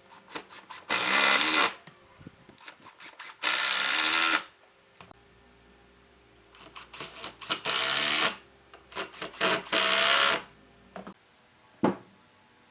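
A handheld power tool's motor, likely a drill, runs in four short bursts of under a second each, its pitch bending up and down, with light knocks of wood and tool handling between them and one sharper knock near the end.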